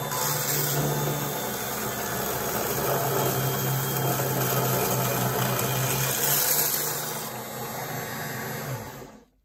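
Small benchtop drill press running steadily with a low motor hum as it works a 2.5 mm hole through a model truck's aluminium chassis rail, then winding down and stopping near the end.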